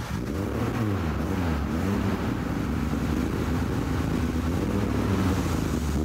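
Car engine running and being revved up and down repeatedly, with a little helium fed into its air intake. The helium makes at most a slight, barely audible change to its sound.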